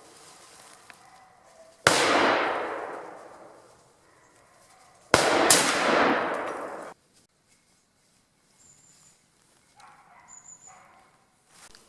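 Two rifle shots from a .45-70 lever-action rifle (Pedersoli Boarbuster Shadow), about three seconds apart, each followed by a long rolling echo that fades away; the second shot has a second crack right after it and its echo ends abruptly.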